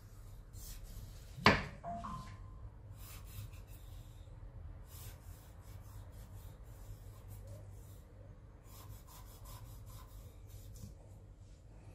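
Chef's knife scoring the skin of whole dorado on a wooden cutting board: faint scraping and rubbing strokes, with one sharp knock about one and a half seconds in. A low steady hum runs underneath.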